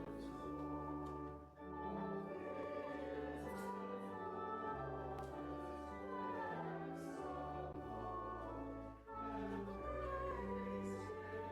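Church music: singing with vibrato over sustained organ-like chords and a held bass line, the chords changing about every second. The music briefly drops away twice, as between phrases.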